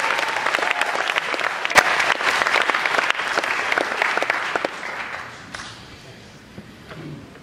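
Theatre audience applauding, the clapping fading away about five to six seconds in.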